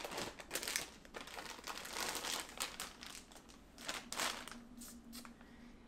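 Clear plastic bag crinkling in irregular bursts as a camera lens hood is pulled out of it.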